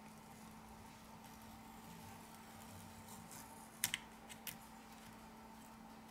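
Faint steady hum with a few small, sharp clicks about four seconds in: a thin pry tool tapping against the phone's metal chassis as a flex cable is lifted off it.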